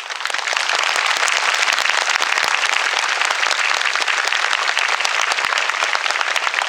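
Audience applauding, many hands clapping, starting suddenly and going on steadily.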